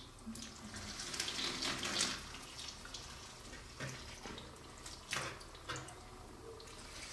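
Tap water running into a sink and splashing irregularly over a block of ice, melting it to free a frozen phone.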